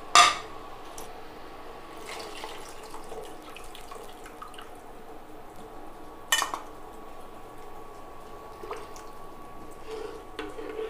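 Tamarind gravy bubbling and popping softly as it simmers in a pan, over a faint steady tone. There are two sharp clicks, one right at the start and one about six seconds in. A ladle stirs the gravy near the end.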